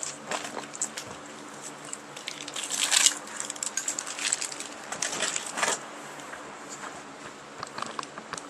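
Rustling and crinkling handling noise of an engine wiring harness being moved about, with scattered clicks and two louder rustling spells, over a faint steady hum.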